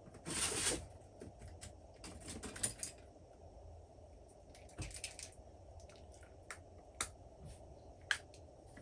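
Rummaging and handling small tools and parts on a workbench: a short scraping rustle just after the start, then scattered light clicks and taps.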